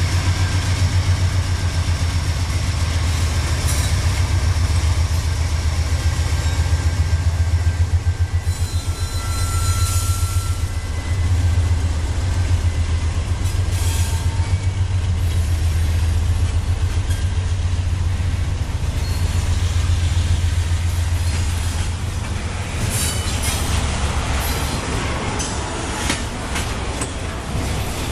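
Freight train passing: two Norfolk Southern GE Dash 9-40CW diesel locomotives with a heavy low rumble, then double-stack container cars rolling by. A brief wheel squeal comes about ten seconds in. The rumble eases about two-thirds of the way through, and the wheels click over the rail joints near the end.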